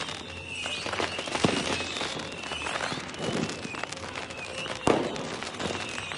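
Fireworks going off: a steady crackle of small bursts with high whistles rising and falling over it, and two sharp bangs about a second and a half in and near five seconds in.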